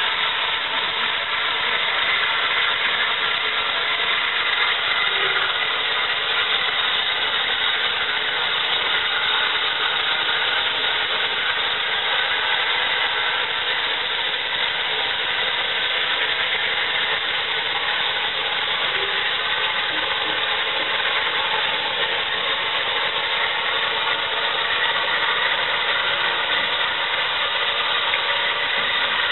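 Steady, loud hiss of steam escaping from the Battle of Britain class steam locomotive 34053, with no exhaust beats.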